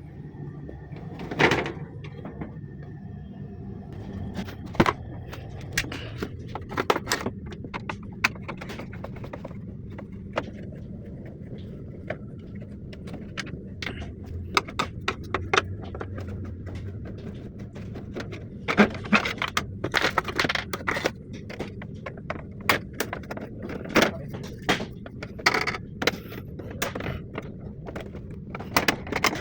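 Irregular clicks, knocks and scrapes of air conditioner parts being handled during cleaning, over a steady low hum. The clicks grow busier from about nineteen seconds in.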